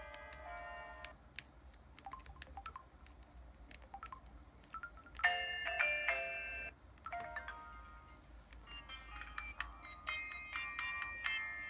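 Samsung Anycall SCH-W200 mobile phone playing a series of short electronic chime tones through its built-in speaker, a few quick melodic jingles one after another with short gaps between them. Faint clicks sound in the quieter stretch near the start.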